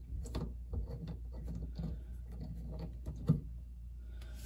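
Braided steel faucet supply line being unscrewed by hand from a chrome SharkBite shutoff valve: faint metal rubbing and small clicks, with a louder knock a little after three seconds in.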